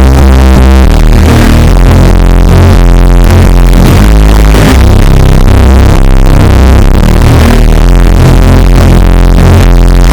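Electronic pop song bass boosted so hard that it distorts and clips, with very loud, deep bass notes and no vocals yet.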